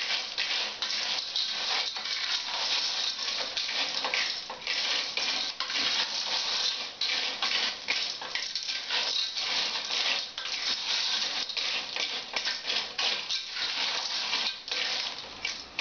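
Periwinkle shells clattering in a metal cooking pot as they are stirred with a wooden spoon: a continuous rapid rattle of many small clicks.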